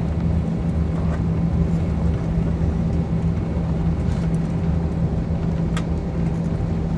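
Steady hum and low rumble of a jet airliner heard inside the cabin as it taxis, its engines at low thrust.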